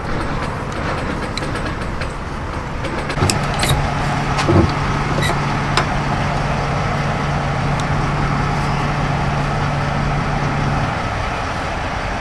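Kenworth T680 semi-truck's diesel engine idling steadily, with a few short clicks and knocks as the trailer air-line couplings (glad hands) are handled.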